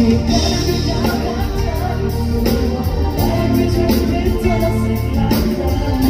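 Pop song with singing over a band backing of guitar and keyboard, with a steady drum beat.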